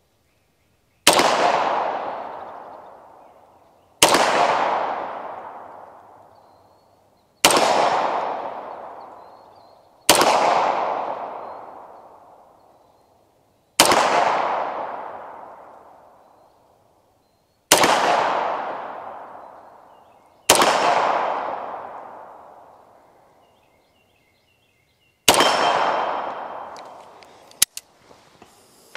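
Beretta M9A4 9mm pistol fired eight times in slow, deliberate fire, the shots three to four seconds apart, each report trailing off over two to three seconds. A short sharp click comes near the end.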